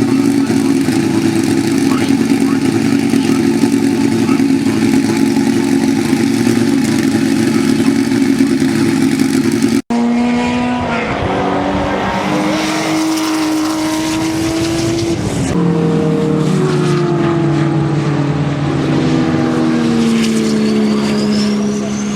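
Porsche 934 Turbo's turbocharged air-cooled flat-six engine, held at a steady note for about ten seconds, then after a break revving up and down. Near the end a high whistle rises steadily in pitch: the turbocharger spooling up.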